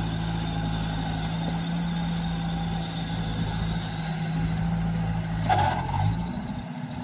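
Diesel engine of a tracked rice combine harvester running steadily while it works. About five and a half seconds in, the engine's pitch briefly dips and recovers, along with a short higher-pitched sound.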